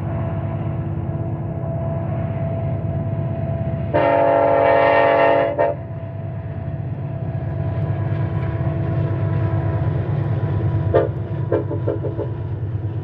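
Heavy iron-ore train passing behind its diesel locomotives, with a steady low engine rumble. The locomotive's air horn sounds one long blast about four seconds in, lasting nearly two seconds, and a few brief sharper tones stand out near the end as the loaded ore wagons roll by.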